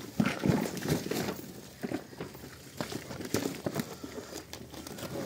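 Irregular rustling and soft knocks of a heavy canvas tent flap being pushed aside and handled.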